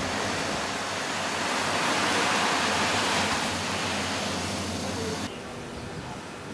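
Surf washing onto a sandy beach, a steady rushing noise that swells about two seconds in. It cuts off suddenly about five seconds in, leaving quieter outdoor ambience.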